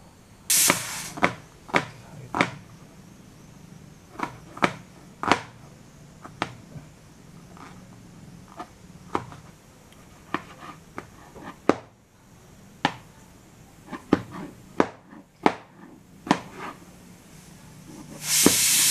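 Broad-bladed kitchen knife chopping red onion and tomato on a plastic cutting board: irregular sharp knocks of the blade hitting the board, with a short hiss near the start and a louder burst of hiss near the end.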